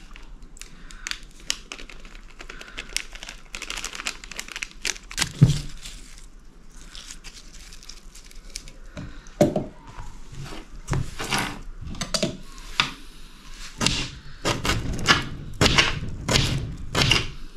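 Crinkling and tearing of fresh culantro (shadow beni) leaves being picked over by hand, then a knife chopping them directly on a glass table top: a quick run of sharp knocks of the blade against the glass in the last few seconds.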